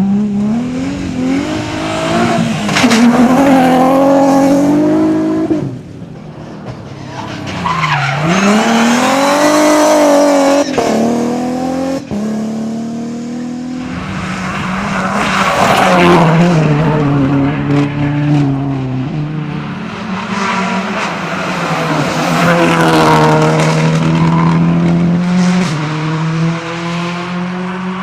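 Rally cars at full throttle: engines revving hard, the pitch climbing and then dropping at each gear change, in several separate passes cut one after another.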